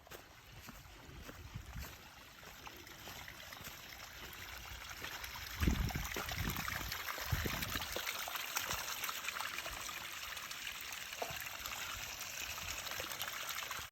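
Small trailside spring trickling and splashing, a steady hiss of running water that grows louder as it is approached. A few low thumps come about six and seven seconds in.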